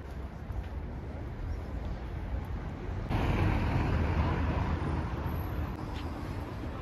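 Outdoor city street ambience with a steady low rumble of distant traffic. About three seconds in, a louder rushing noise starts abruptly and fades after about three seconds.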